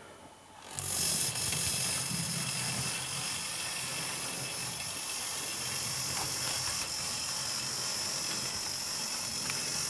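Model railway locomotive's electric motor and gears whirring as it runs along the track, starting about a second in and then running steadily. The engine has not been run in a while and is a little stiff, needing running in.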